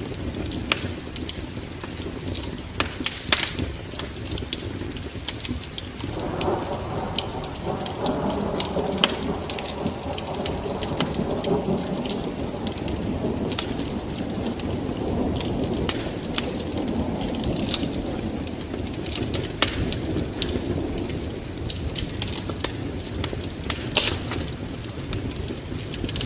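Wood fire in a fireplace crackling, with irregular sharp pops. About six seconds in, a lower, steady rushing sound comes in, then fades again near the end.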